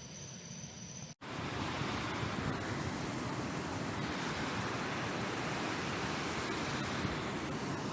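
Steady, loud rushing water, an even roar with no rhythm, starting abruptly at a cut about a second in. Before the cut, a quieter outdoor background with a faint high steady tone.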